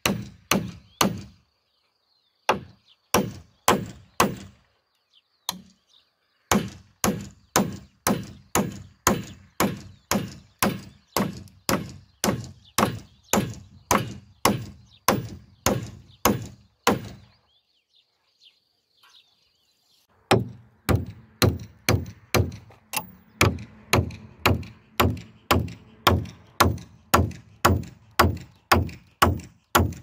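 Hammer driving long nails into timber framing: a few scattered strikes at first, then a steady run of blows at about two a second, a pause of about three seconds, and another steady run.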